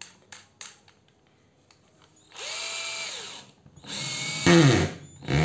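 A 14 V cordless hammer drill switched to hammer mode. A few small clicks come first, then the motor runs three times in short bursts. The first run spins up, holds and winds down. The second is louder, rising to a harsh rattle partway through as the chuck is pressed down and the hammer action works, and a short run follows near the end.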